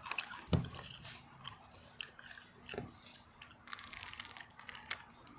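Someone crunching and chewing Takis rolled tortilla chips, with a quick run of crisp crunches about four seconds in.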